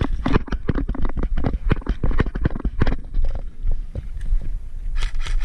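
Footsteps crunching on dry dirt and gravel, a quick run of steps that thins out after about three seconds, over a steady low rumble.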